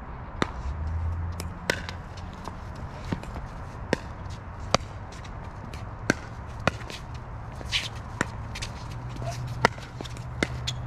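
Pickleball rally: paddles striking the hollow plastic ball, with the ball bouncing on the hard court, a string of sharp pops roughly every half-second to second. A steady low rumble sits under it, and a brief scuffing hiss comes about eight seconds in.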